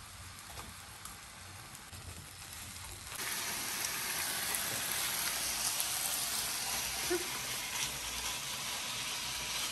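Meat sizzling on a Korean barbecue grill pan over a portable gas stove, a steady crackling hiss that grows much louder about three seconds in.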